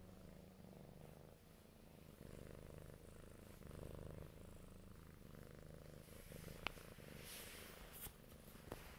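Domestic cat purring steadily close to the microphone. Near the end come two sharp clicks and a brief rustle.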